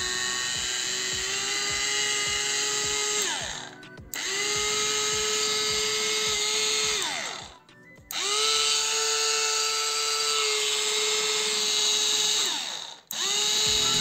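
Small rechargeable electric garlic chopper running with an empty bowl in short bursts: three runs of three to four seconds and a fourth starting near the end. Each run rises quickly to a steady high hum and winds down when the button is released.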